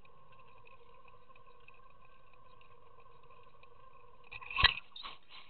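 Boat motor running steadily at trolling speed, a steady hum. About four and a half seconds in there is one sharp knock on the boat, then a few lighter clatters.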